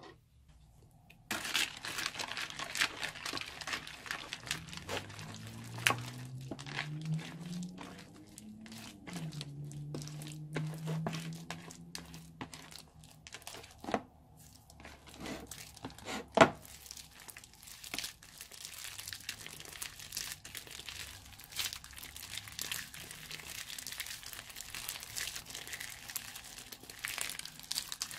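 Crunchy slime full of small plastic beads being mixed with a silicone spatula and kneaded by hand: dense crackling and crunching with many small clicks and a few sharper pops, the loudest about 16 seconds in.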